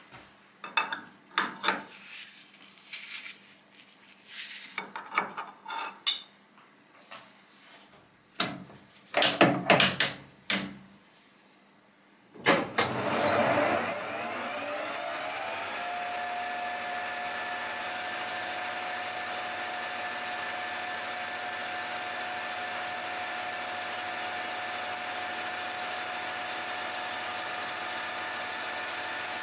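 Several sharp metallic knocks and clanks, as a workpiece is set up in a metal lathe's collet chuck. About twelve seconds in, the lathe starts: its whine rises as the chuck spins up. It then runs at a steady speed with an even whine.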